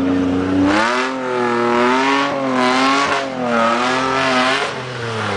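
Off-road 4x4's engine revving hard while it climbs a steep dirt slope, its pitch rising and falling about once a second as the throttle is worked.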